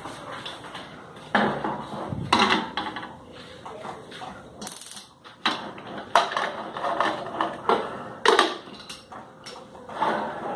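Pressure cooker lid and pot knocking and clattering, metal on metal, as the lid is fitted onto the pot and twisted shut, with several separate clanks, some of them ringing briefly.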